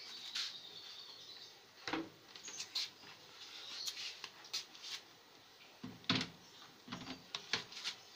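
Wooden cabinet door panel being handled and fitted into a TV cabinet: scattered clicks, taps and knocks of board against board. The heaviest knocks come about two seconds in and again around six to seven and a half seconds in.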